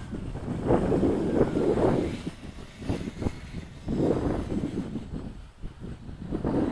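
Wind buffeting the microphone in gusts: a low rumble that swells and drops back several times.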